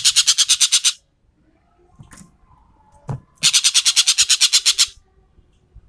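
Ekek keling bird giving its rattling 'tembakan' call. Two bursts of rapid dry clicks, about ten a second, each lasting about a second and a half: the first ends about a second in, and the second comes near the middle.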